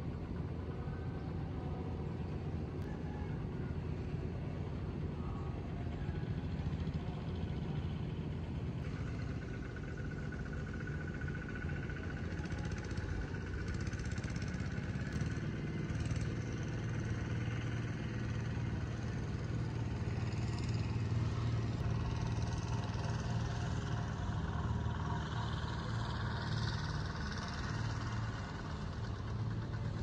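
A steady low rumble that runs on without a break, with faint higher tones above it.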